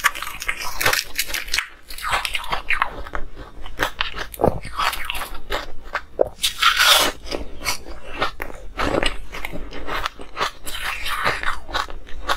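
Ice cubes being bitten and chewed into a close microphone: a continuous, irregular run of sharp crunches and crackles.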